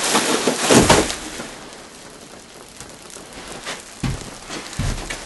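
Crinkling and rustling of an insulated flexible air duct's plastic vapor-barrier jacket as it is handled, loudest in the first second, then fading to a faint rustle, with a few dull knocks near the end.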